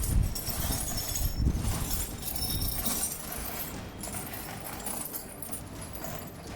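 Broken glass being tipped from a bucket and spread across the ground, a jumble of light clinking and tinkling shards.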